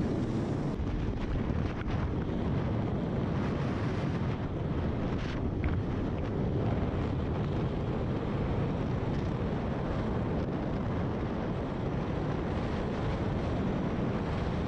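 Sea-Doo personal watercraft's engine running while it rides over choppy water, with heavy wind buffeting the microphone. The sound stays steady and dense throughout.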